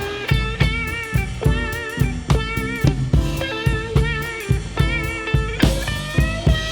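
Blues band playing live through an instrumental break. A drum kit keeps a steady beat with bass drum and snare, under a lead line of held, wavering notes that bend in pitch.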